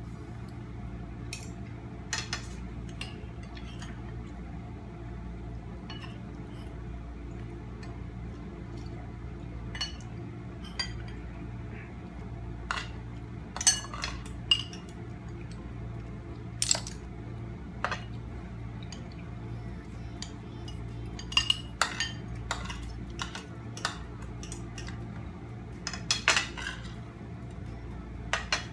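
Spoons and forks clinking and scraping against plates and bowls during a meal, in scattered sharp clicks over a steady low hum.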